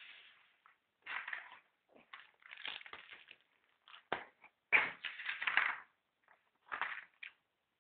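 Irregular rustling and scraping from hands moving a set square and other objects about on a wooden tabletop, with a couple of sharp knocks about four and five seconds in.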